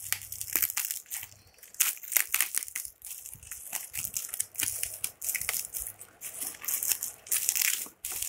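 Bubble wrap packaging being pulled open and crumpled by hand: a run of irregular crinkling and crackling.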